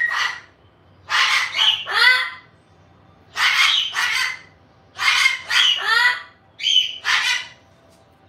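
Goffin cockatoo squawking: harsh, loud screeches in short clusters, repeated several times with brief pauses between them.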